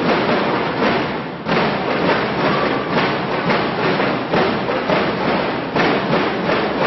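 Drum and lyre corps playing: marching drums hit a steady beat of about two strokes a second over a dense wash of band sound.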